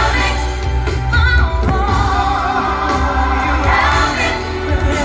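Fireworks-show soundtrack over the park's loudspeakers: loud music with a choir singing and heavy bass.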